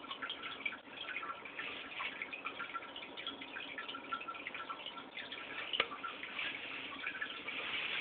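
Aquarium water bubbling and trickling: a steady patter of small drips and splashes, with one short click about six seconds in.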